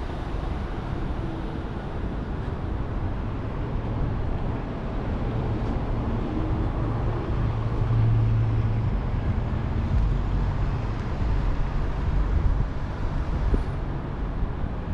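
Street traffic: a steady rumble of vehicles on the road, with a low engine hum that swells around the middle.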